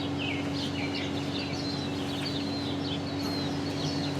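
Small birds chirping over and over, short quick chirps giving way to longer whistled calls, over a steady low hum.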